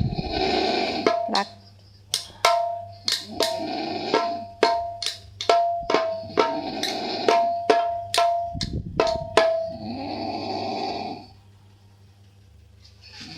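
A person snoring loudly, with a quick run of about twenty sharp, tabla-like drum hits over it from about a second in to nearly ten seconds. The snoring carries on alone after the hits and drops away briefly near the end.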